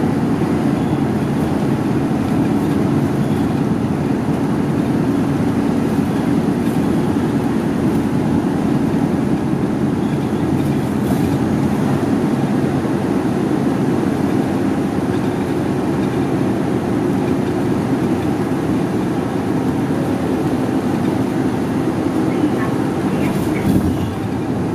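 Route bus driving, heard from inside the passenger cabin: a steady drone of engine and road noise.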